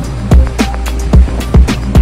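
Background music with a steady beat: deep kick-drum thumps and crisp percussion hits over sustained bass notes.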